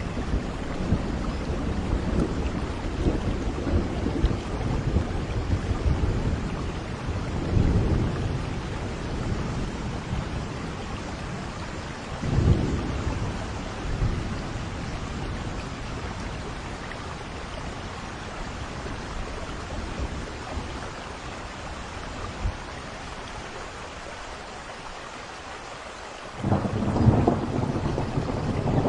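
Steady rain falling with rolling thunder. Low rumbles swell through the first third and again around the middle, ease off into a quieter stretch of rain, then a loud thunderclap breaks in near the end and rolls on.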